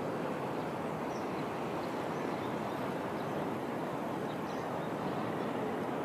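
Steady outdoor background noise, an even rushing with no clear rhythm or pitch, with a few faint high bird chirps here and there.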